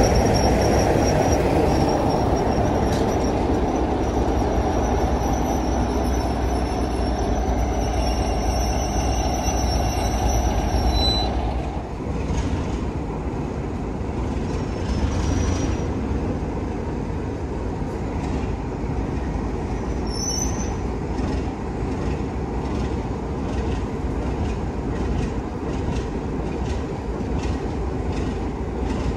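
Class 33 diesel-electric locomotive and its train passing close, the engine running under a high, steady wheel squeal. About twelve seconds in the sound drops to a quieter steady rumble as it draws away, with brief squeals and faint clicks of wheels over rail joints.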